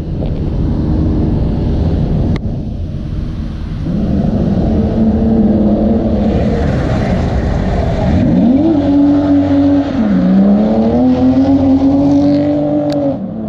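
A car engine revving hard through a drift run. Its pitch holds high, dips about ten seconds in, climbs again and then falls away near the end, with tyre noise around the middle.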